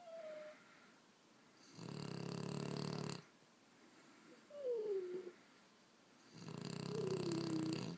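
Sleeping French bulldog snoring: two long, rattling snores about four and a half seconds apart, with high whistling squeaks that slide down in pitch between and during them.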